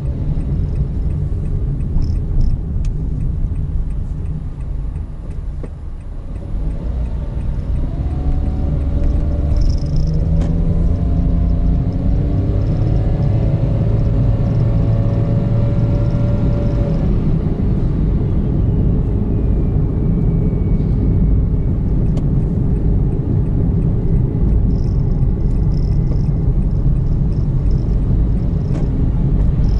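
Honda N-BOX kei car's 660 cc naturally aspirated three-cylinder engine and road noise heard from inside the cabin while driving, a steady low rumble. From about seven seconds in, the engine note climbs steadily as the car accelerates, then drops off around seventeen seconds in.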